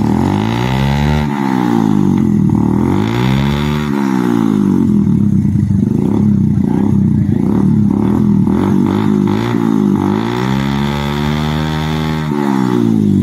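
Bajaj Kawasaki Caliber 115's single-cylinder four-stroke engine running loud through a freshly fitted aftermarket SC Project exhaust, just started. It is revved twice in the first few seconds, then runs fairly steady, revs again about ten seconds in, and gets a few quick blips near the end.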